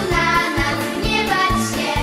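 A young girl singing into a handheld microphone over a backing track with a repeating bass beat.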